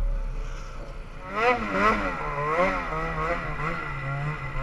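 Snowmobile engine revving as the throttle is worked on and off through deep powder; from about a second in its pitch swings up and down again and again, roughly two to three times a second.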